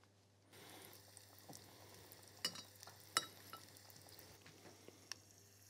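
Hot vegetable oil frying with a faint, steady sizzle. A few light clicks of metal tongs come on top of it.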